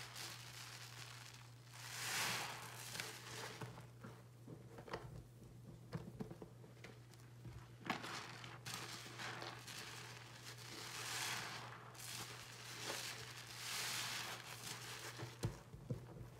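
A soapy sponge being squeezed and wrung out in a sink of sudsy water: repeated wet squishing and sloshing with fizzing, crackling foam, coming in swells every second or two, over a steady low hum.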